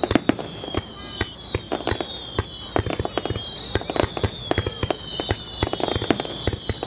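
Fireworks going off in a rapid barrage: many sharp bangs and crackles, overlaid with several high whistles that fall in pitch.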